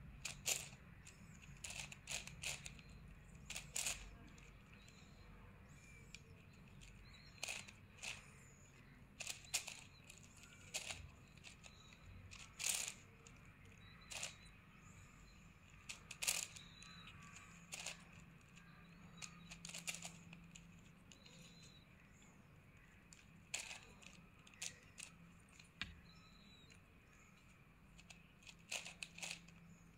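Plastic 9×9 puzzle cube being turned by hand: short, sharp clicks of its layers snapping round, singly or in quick little runs, with pauses of a second or more between turns.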